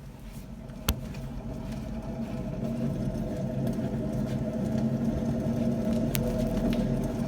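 Car on the move with a steady hum that grows louder over several seconds, the kind of drone a bad wheel bearing makes. Two sharp clicks come about a second in and near the end.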